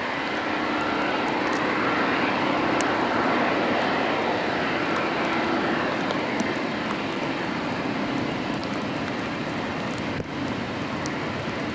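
Airbus A380's four jet engines at take-off thrust as the airliner climbs away, a steady, dense engine noise with a low growling hum. It is loudest a few seconds in and slowly fades as the aircraft draws away.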